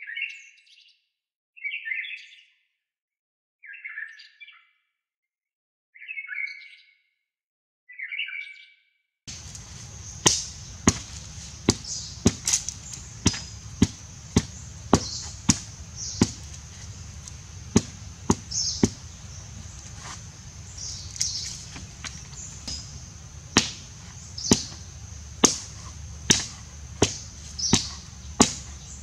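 A bird gives short chirping calls about every two seconds. About nine seconds in, a hand blade starts chopping into a wooden stick on the ground, with sharp strikes at an irregular one to two a second over a steady high drone.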